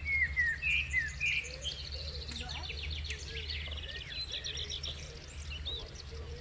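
Small songbirds chirping, with a rapid trill of repeated notes a couple of seconds in, over a steady low rumble.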